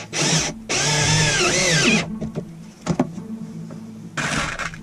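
Cordless drill driving screws: a short burst, then a run of over a second with its whine rising and falling as the trigger is worked, and another short burst near the end.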